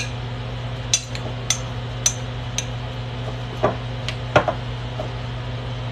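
Kitchen cookware and utensils clicking and knocking: a string of sharp clicks about every half second, then two heavier knocks past the middle, over a steady low hum.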